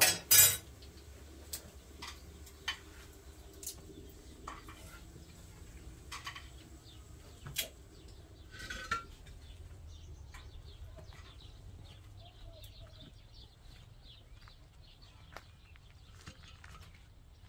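Scattered light clinks and knocks of hard objects being handled, the sharpest clatter just after the start and two more about eight and nine seconds in. Faint high chirps come through in the background about two-thirds of the way through.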